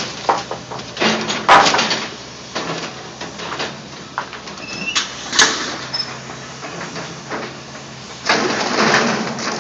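Caterpillar hydraulic excavator's diesel engine running steadily while its bucket clanks and grinds through scrap metal. There is a sharp metal crash about a second and a half in, another around five seconds, and a longer spell of grinding metal near the end.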